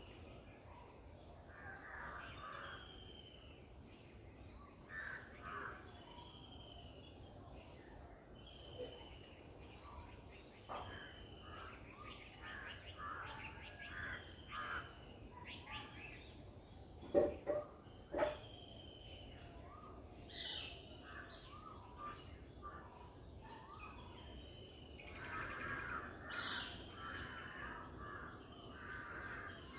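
Crows cawing on and off, with short falling chirps from other birds in between. Three sharp knocks sound a little past the middle, over a steady high whine.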